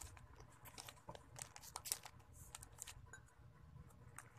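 Faint crinkling and crackling of a small plastic snack wrapper being handled, in short scattered bits.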